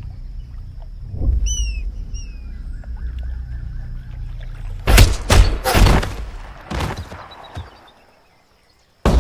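Short falling bird chirps over a low outdoor rumble, then several loud sharp bangs between about five and seven seconds in. The sound dies away to near silence, and a loud noise cuts in suddenly near the end.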